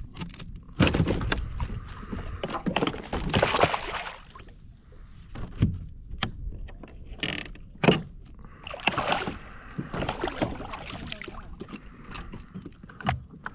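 Water splashing and sloshing at the side of a plastic kayak, with irregular knocks and clatters as a landed redfish is handled in the landing net; the sharpest knock comes about eight seconds in.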